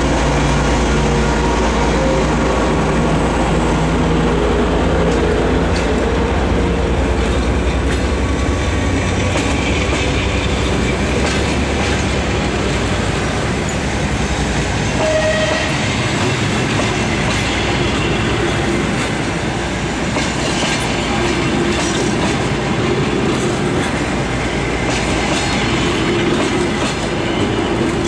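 TEP70BS diesel locomotive's engine working hard as it pulls a passenger train out and passes, then giving way to the passenger coaches rolling by. The coach wheels click over the rail joints, and the clicks come faster as the train gathers speed.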